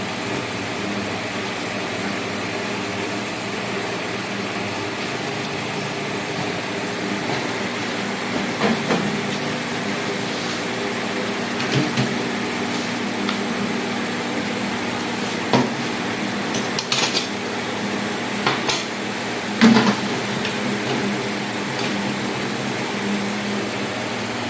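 Baby-feeding equipment being handled and put down: scattered clinks and knocks, starting about a third of the way in, over a steady hum.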